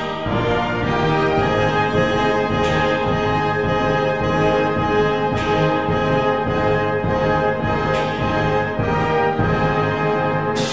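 Orchestral background music led by brass, sustained chords changing every few seconds.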